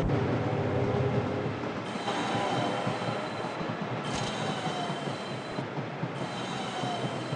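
Train running on the rails, with high-pitched wheel squeal coming in three spells about two seconds apart over the steady rolling noise.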